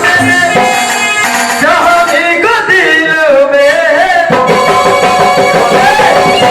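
Hindi devotional bhajan music: a wavering melody line over held organ-keyboard notes, with a light hand-drum beat. About four seconds in, the melody gives way to steady sustained notes.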